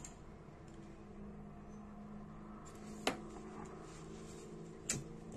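Two sharp clicks about two seconds apart from small lighter parts being handled, over a faint steady hum.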